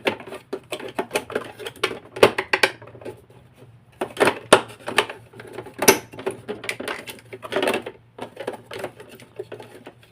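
Plastic casing parts of an Electrolux vacuum cleaner clicking and knocking as they are worked into place by hand, an irregular run of small clicks with sharper knocks about two, four and a half and six seconds in.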